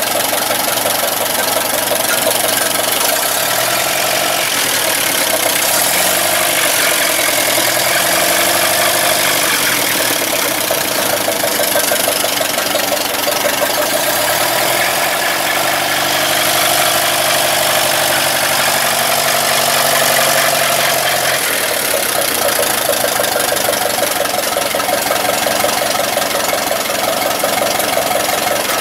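1949 Ferguson TEA20's four-cylinder petrol engine idling steadily, with a weird noise from the water pump, which needs replacing.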